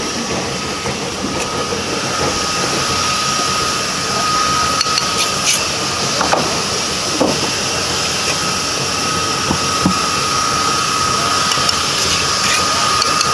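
A machine running with a steady hiss and a constant high whine, with a few light clicks and knocks over it.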